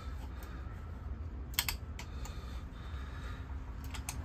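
Scattered sharp clicks from a ratchet and spark plug socket being handled on the engine: a quick cluster about a second and a half in, one more just after, and a pair near the end, over a low steady hum.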